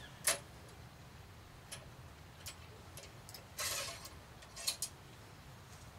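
About half a dozen sharp clicks and taps, with a brief scraping sound a little past halfway, from handling a muzzleloading rifle and its loading gear while it is being reloaded.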